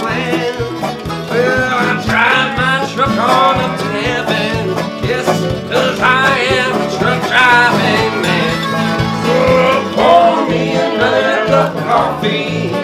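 Country band playing an instrumental break: resonator guitar, electric bass and electric guitar over a steady drum beat, with a harmonica-like lead line bending in pitch above.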